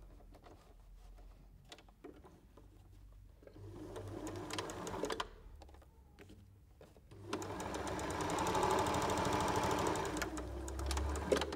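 Electric sewing machine stitching a seam in two runs: a short burst about three and a half seconds in, then a longer, louder run from about seven seconds in until just before the end, with the needle's rapid, even strokes.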